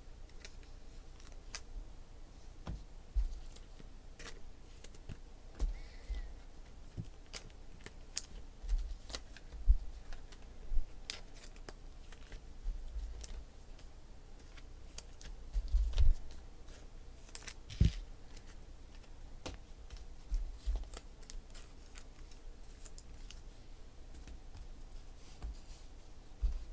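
Scattered sharp clicks and taps with a few low thumps at irregular times, from trading cards and their packs being handled.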